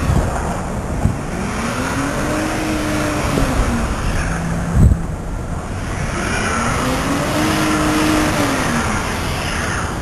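Vehicle engine revving up and dropping back twice, each swell lasting about three seconds, over a steady rumble. There is a short knock about halfway through.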